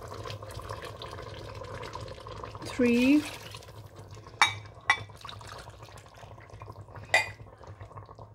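Meat stock being poured cup by cup into a steel pot, with liquid splashing and a measuring cup clinking against the pot three times. A short hum from a voice about three seconds in is the loudest sound.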